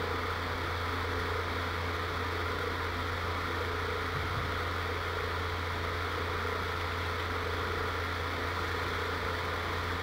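A steady mechanical hum with a low drone and a faint higher tone, over an even hiss, unchanging throughout.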